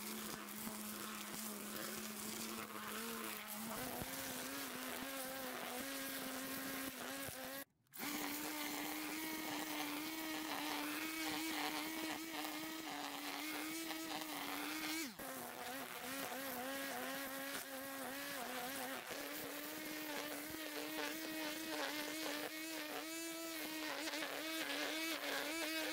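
Grass trimmer running at full speed and cutting grass and weeds, a steady high buzzing whine. The sound drops out briefly about eight seconds in, and its pitch steps slightly a few times.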